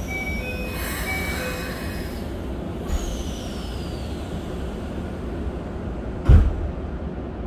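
Inside a Keikyu 1000 series train car standing at a station: a few electronic chime tones in the first two seconds. About three seconds in, the sliding doors shut with a clunk and a falling whine, over the stopped train's steady low hum. A loud thump comes near the end.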